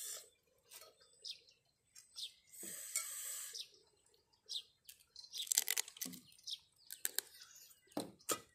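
Close-miked mouth sounds of eating raw baby crabs in chili dressing: a wet hiss of sucking and slurping, then a run of sharp clicks and crunches from the small shells near the end.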